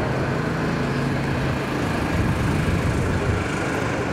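Steady engine noise: a low, even hum with a hiss above it.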